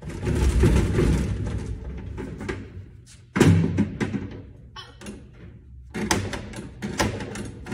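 Knocks and thumps at a snack vending machine's delivery bin: a couple of seconds of rattling at the start, a sharp heavy thud about three and a half seconds in as the push flap is worked, and a quick cluster of knocks near the end.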